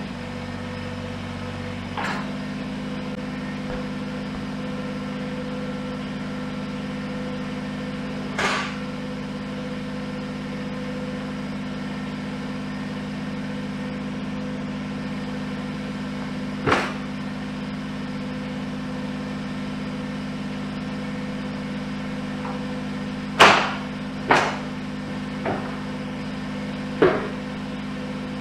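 Kubota BX23s compact tractor's three-cylinder diesel idling steadily, with a handful of sharp knocks over it, several of them close together near the end.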